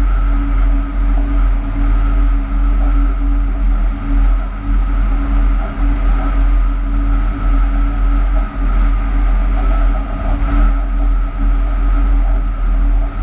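Cab of a Class 186 TRAXX electric locomotive running light engine. A steady low rumble from the running gear carries a constant hum and a steady high whine from the locomotive's electrical equipment.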